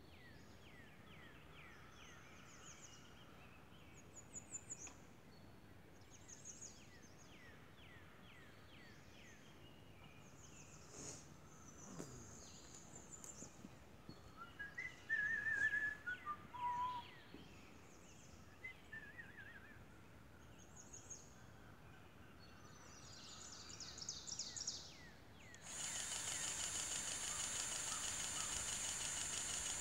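Songbirds chirping and singing in the surrounding woods, with a louder trill about halfway through. Near the end a loud, steady buzzing whine starts and lasts about five seconds.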